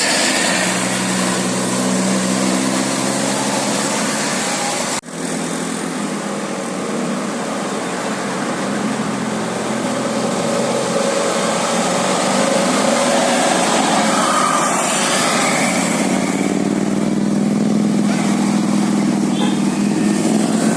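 Road traffic with vehicle engines running, with a steady engine hum at the start and again building near the end. The sound cuts out abruptly for an instant about five seconds in.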